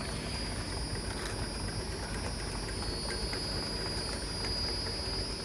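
Automatic sticker labeling machine running: a steady low rumble under two constant high-pitched tones, with a few faint clicks.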